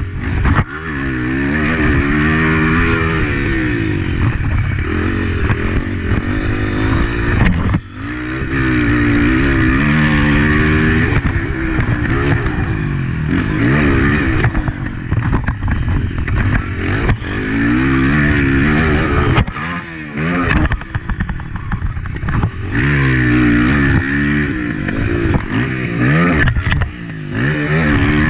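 Honda CRF250F four-stroke single-cylinder dirt-bike engine heard from on the bike while racing a motocross track: the revs climb and fall again and again as the rider works the throttle through the gears, with a few brief drops where the throttle is shut.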